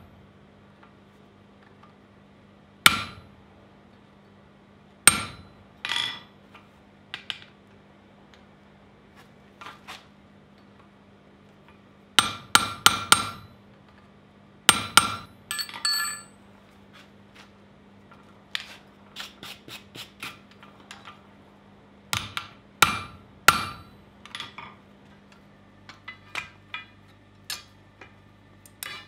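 Hand hammer striking a handheld chisel-type tool set on red-hot angle iron over the anvil, each blow a sharp ringing clang. The blows come singly a few seconds apart, with a quick run of four about halfway through, then lighter taps near the end. A faint steady hum runs underneath.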